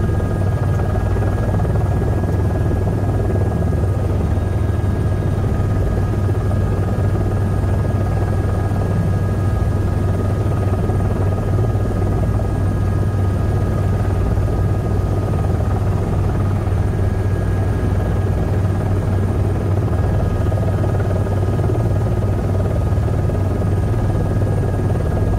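Helicopter engine and main rotor running steadily on the ground before takeoff, heard from inside the cabin: a loud low rotor drone under a steady high whine.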